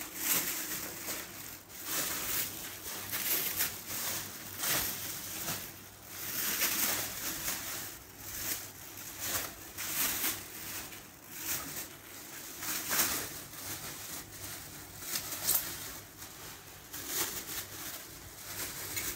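Thin plastic bags rustling and crinkling in repeated handfuls as naan flatbreads are packed into them.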